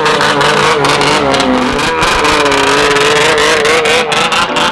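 Polaris snowmobile engine revving hard and held at high revs as the sled launches off across pavement, its pitch wavering.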